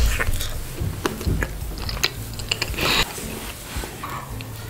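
Close-miked biting and chewing of a sprinkle-covered sponge cake: scattered small crunches and crackles, with a louder crunch about three seconds in.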